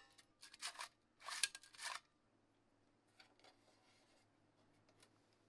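Three short bursts of metal scraping and rattling in the first two seconds as a small, loose-fitting steel stove part is slid and handled, then a few faint clicks.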